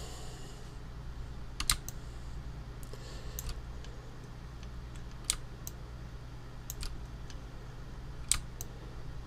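About eight short, sharp clicks from a computer's mouse and keys at uneven intervals as a 3D point-cloud model is navigated, over a steady low hum.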